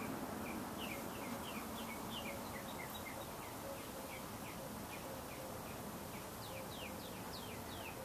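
Montgomery Ward Evergo E-3 industrial ceiling fan running steadily, a faint hum under the rush of air. Over it comes a quick string of short high chirps, about three a second, growing longer and louder near the end.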